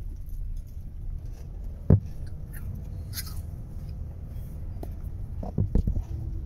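Low steady rumble of a car rolling slowly, heard from inside the cabin, with one sharp knock about two seconds in and a few quicker knocks near the end.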